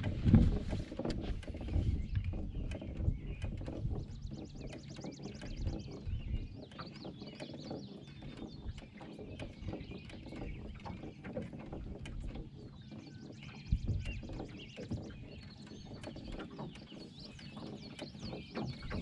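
Water lapping and slapping against the hull of a fishing boat, with a steady low rumble and many small knocks, and birds calling from about four seconds in.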